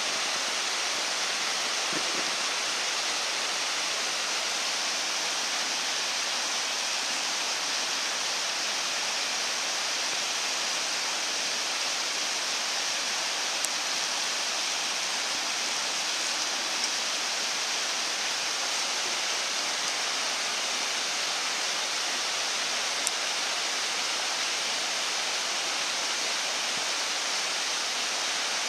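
Steady rushing of a nearby mountain stream, an even, unchanging hiss of running water.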